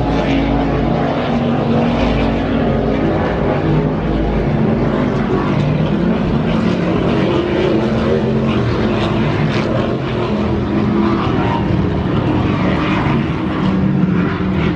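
Offshore racing powerboats running at speed, a loud, steady multi-engine drone.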